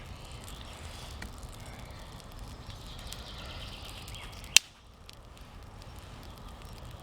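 Small campfire of damp wood burning with faint scattered crackles over a low outdoor rumble; one sharp crack about four and a half seconds in.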